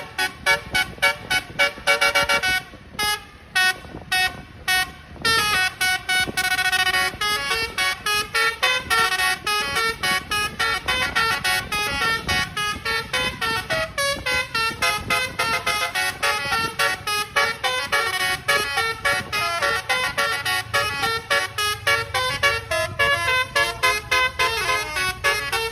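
Indonesian bus telolet horn, a Basuri multi-tone air horn, playing a fast melody of short, rapidly repeated toots, with a short break a few seconds in.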